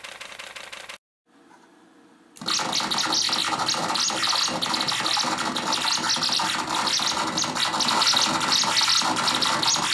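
Hand-built circuit-bent noise synthesizer putting out a dense hiss laced with rapid, irregular high chirps and glitches. It starts abruptly about two seconds in, after a short quiet gap.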